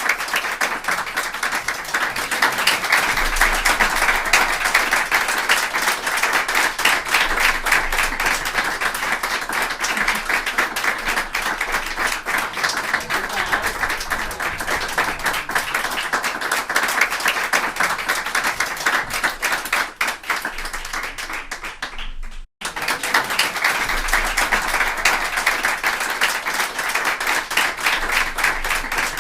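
A group of people applauding, a dense continuous clatter of many hands clapping. It softens a little about two-thirds of the way through, cuts out for an instant, then resumes just as full.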